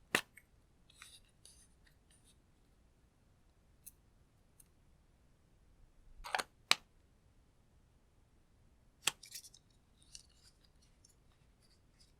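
Lipsticks being handled: a few sharp plastic clicks, one right at the start, a close pair about six seconds in and another about nine seconds in, with faint crackling between them.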